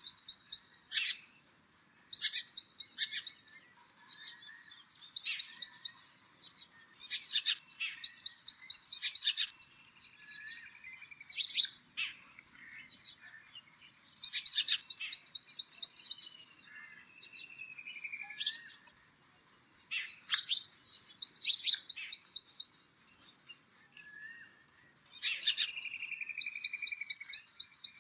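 Bird song: short, rapid high trills of quickly repeated notes, recurring every two to three seconds, with sharp single chips and lower down-slurred whistles in between.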